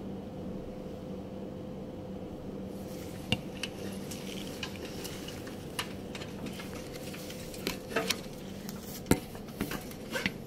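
A steady hum, with scattered sharp clicks and knocks that start about three seconds in and are loudest near the end.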